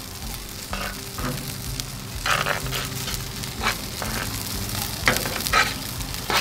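Salmon fillets sizzling on a flat-top griddle while a metal spoon stirs a cream sauce in a pan, the spoon scraping the pan in short strokes several times.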